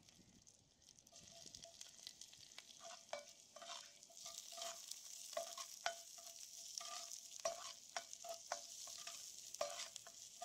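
Sliced onions sizzling in hot oil in a cast-iron pot, the sizzle building about a second in as they hit the oil. A ladle scrapes and knocks against the pot again and again as they are stirred.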